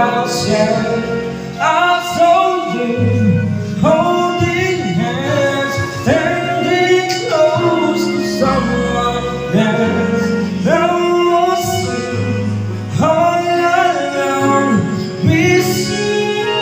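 A man sings a slow ballad into a handheld microphone over backing music, with chords struck every two seconds or so.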